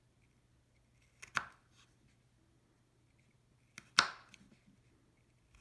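Small kitchen knife cutting notches into a thick carrot round on a wooden cutting board: two sharp knocks of the blade, about a second and a half in and again near four seconds, each with a faint click beside it.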